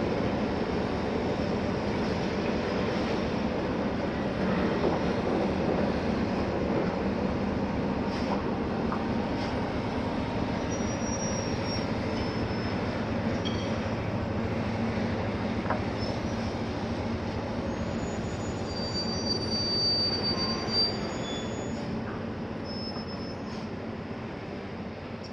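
Heavy mobile crane driving off, a steady low running noise with short high-pitched squeals in the middle, fading away toward the end.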